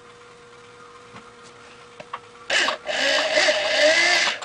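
An electric drill with a quarter-inch bit boring through a hollow, rubber-overmolded synthetic rifle stock. It starts about halfway in, with a short burst and then a longer run whose motor pitch wavers slightly under load, and stops just before the end. Before that there are only a faint steady hum and a few light ticks.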